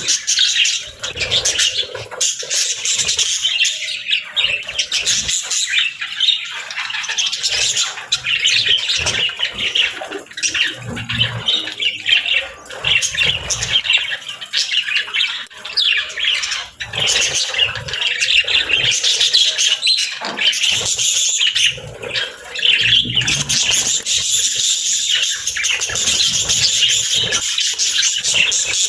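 Budgies chirping and chattering continuously, a dense high-pitched twitter with scattered short sharp calls.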